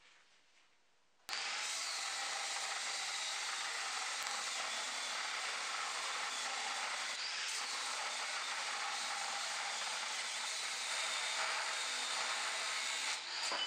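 Large Makita angle grinder with an abrasive cut-off disc cutting through a steel plate. The sound starts abruptly about a second in and then runs steadily.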